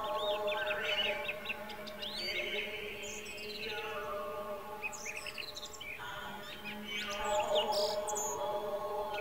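Many small birds chirping and twittering over a slow, sustained chant of held tones, which the temple setting marks as Buddhist pirith chanting.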